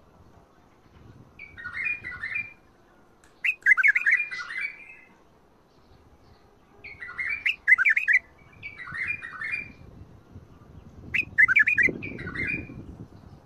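White-eared bulbul (Iraqi bulbul) singing: five short warbled phrases with pauses of a second or two between them.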